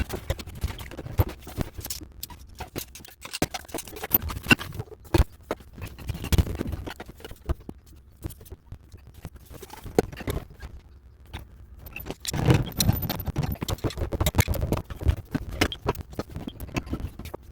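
Irregular clicking, knocking and scraping of tools and drain pipe parts being handled, with a busier run of clatter and scraping about three quarters of the way through.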